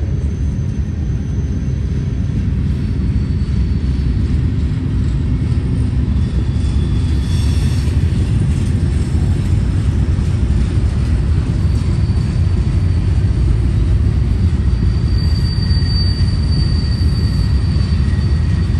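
Tank cars and covered hoppers of a long freight train rolling past: a steady, loud, deep rumble of wheels on rail. Faint thin high tones come and go over it.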